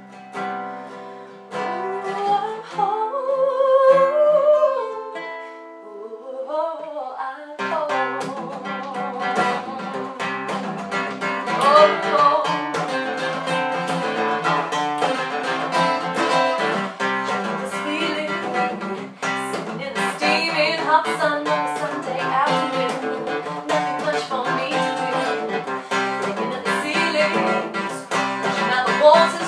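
Acoustic guitar accompanying a woman singing: sparse held chords under her sustained, sliding vocal for the first seven seconds or so, then steady strumming from about seven and a half seconds in, with her voice carried over it.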